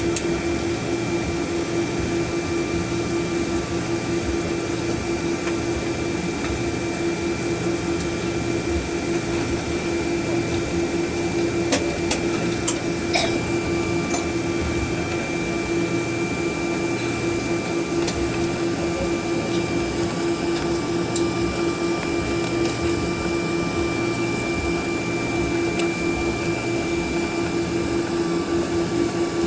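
Cabin noise inside a Boeing 777-200ER taxiing, its engines near idle: a steady hum with a high thin whine over the hiss of the cabin air, and a few faint clicks around the middle.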